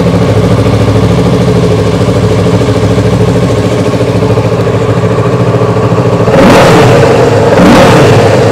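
2024 Kawasaki Ninja 650's parallel-twin engine idling steadily through its stock under-belly exhaust, then revved twice in quick short blips near the end.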